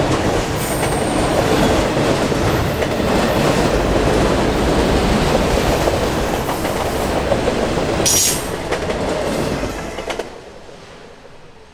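CSX freight train cars rolling past on the rails, a dense steady wheel-and-rail rumble with clickety-clack, and a brief high wheel squeal about eight seconds in. The sound drops off sharply about ten seconds in and fades.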